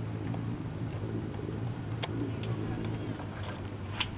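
Quiet background picked up by a model floatplane's onboard camera while the plane rests on the water with its motor stopped: a low steady hum with a few faint ticks.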